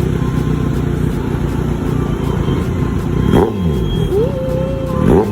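Motorcycles speeding past one after another, engines rising then dropping in pitch as each goes by. Two fast pass-bys stand out, one about three and a half seconds in and another near the end, over a steady background of running engines.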